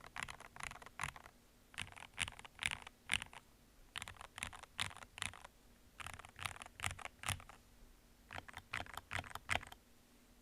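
Stabilized keys of an RK G68 mechanical keyboard, such as the spacebar, pressed quickly in five bursts of several strokes each, with short pauses between. The keyboard has thick-lubed Gateron Milky Yellow switches and lubed plate-mount Everglide V3 stabilizers with band-aid and holee mods.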